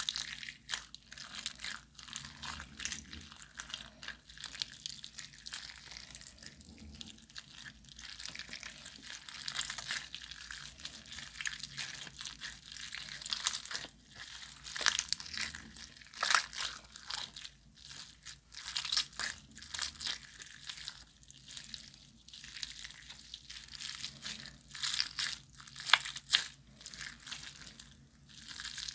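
Hands kneading and stretching glossy slime: irregular sticky crackling and clicking, with a few sharper, louder pops partway through and near the end.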